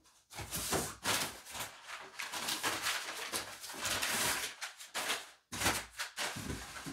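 Crumpled packing paper rustling and crinkling, with cardboard box flaps handled, as packing is pulled out of a cardboard shipping box; a few sharper knocks of cardboard near the end.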